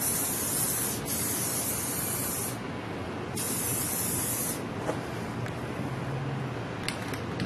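Aerosol can of 3M Paint Defender hissing as it is sprayed on thick and close: a long spray with a short break about a second in, a pause, then another spray that stops about halfway through.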